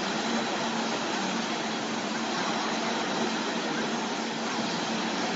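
A vehicle running: a steady, even noise with a faint low hum.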